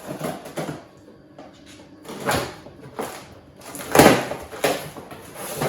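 Heavy cast iron pot being handled while unpacked: a few knocks and clunks, the loudest about four seconds in, with rustling in between.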